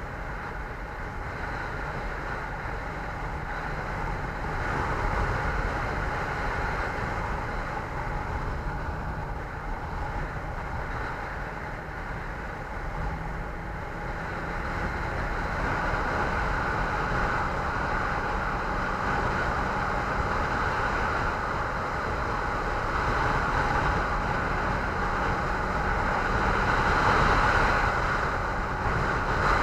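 Steady wind rush on the microphone over the running drone of a vehicle on the move, growing louder toward the end.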